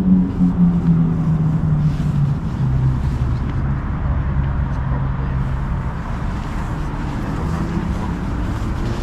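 A motor vehicle engine running steadily, its pitch dropping over the first few seconds and then holding at a low hum.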